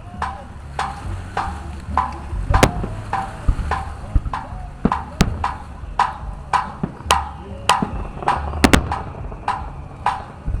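Fireworks shells bursting in quick succession, a string of sharp bangs about two a second, each with a brief echo, over a steady low rumble.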